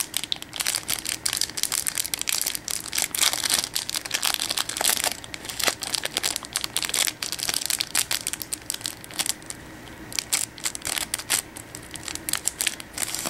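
Foil booster pack of Yu-Gi-Oh cards being torn open and its wrapper crinkled by hand: a dense run of sharp crackles that thins out over the last few seconds.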